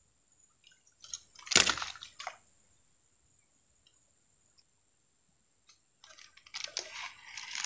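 Water splashing around a snagged fishing line: one loud splash about a second and a half in, then a run of smaller splashes and sloshing near the end as the line is worked free with a fish on it.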